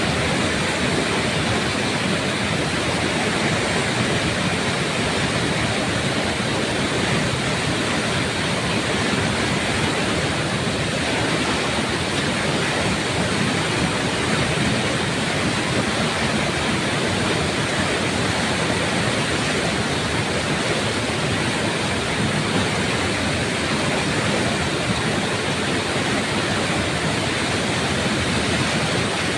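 Floodwater rushing past in a steady, unbroken roar of fast-flowing water.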